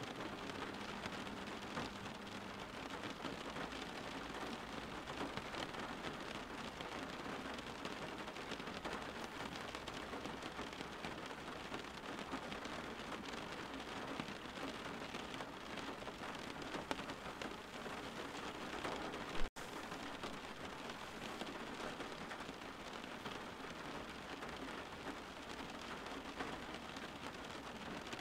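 Steady rain falling, an even, unbroken hiss of many drops. About two-thirds of the way through there is a sharp click with a split-second gap in the sound.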